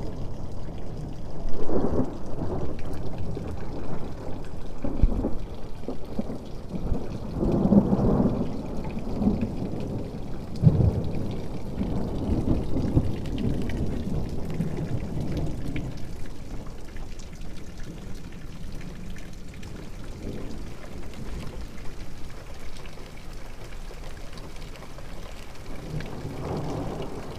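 Thunder rumbling and rolling over steady rain, several long swells in the first dozen seconds, dying away, then another rumble near the end.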